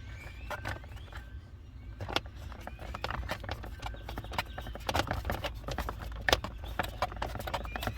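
Clicking from a newly installed turn-signal switch on a Ford Explorer's steering column being tested, with the turn-signal/hazard flasher ticking. The clicks come thicker from about two seconds in, over a low steady hum.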